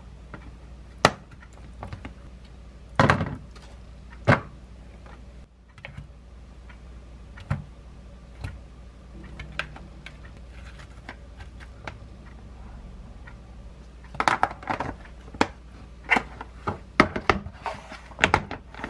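Plastic lunch containers being handled and set down on a countertop, lids pressed shut: scattered sharp clicks and knocks, coming quickly in the last few seconds.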